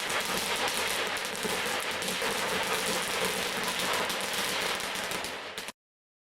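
Fireworks crackling: a dense, continuous stream of rapid small pops that cuts off abruptly about five and a half seconds in.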